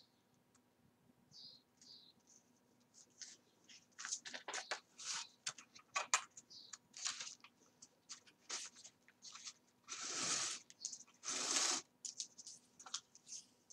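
Paper signatures rustling and scraping against each other and the table while waxed thread is drawn through their sewing holes: a string of short, light scratches, then two longer rasps near the end.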